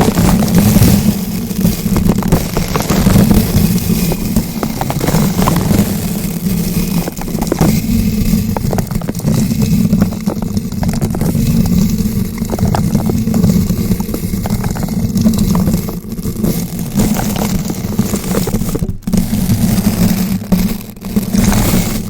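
Bristle brush rotated against a bare microphone, making continuous scratching and crackling with a heavy low rumble from the mic being rubbed. The sound breaks off briefly twice near the end.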